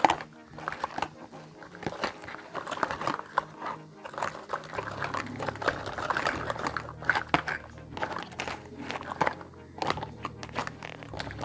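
Small pieces of a miniature toy kitchen set being handled during unboxing: many quick, irregular clicks and taps, with a steady low hum underneath from about halfway through.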